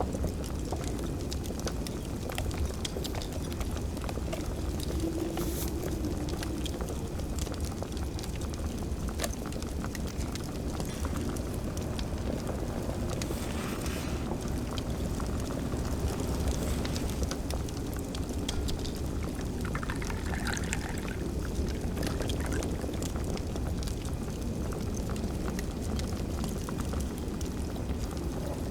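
A wood fire crackling steadily over a low constant rumble, with a few brief kitchen sounds mixed in.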